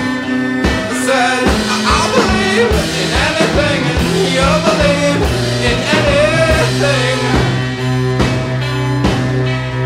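Background music: a song with a singing voice over held notes and a steady beat. The voice drops out near the end.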